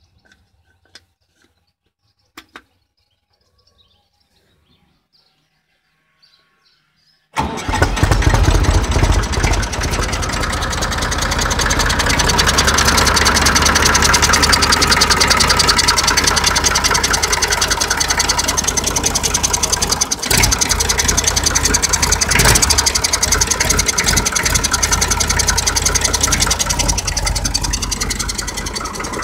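A few faint clicks, then about seven seconds in the IMT 539 tractor's three-cylinder diesel engine starts abruptly and runs steadily with a fast, even beat.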